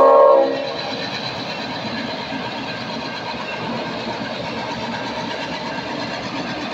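A pair of EMD GP38 diesel locomotives passing slowly: a blast of the locomotive air horn, several tones together, cuts off about half a second in. The steady running noise of their 16-cylinder two-stroke diesel engines and wheels on the rails follows.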